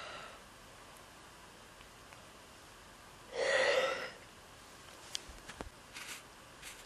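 A woman sneezing once, a little over three seconds in, followed by a few faint clicks and rustles.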